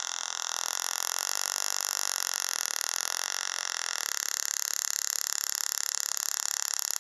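Small tabletop Tesla coil sparking from its metal sphere terminal: a steady high-pitched hiss and buzz, which turns into a rapid flickering crackle about four seconds in.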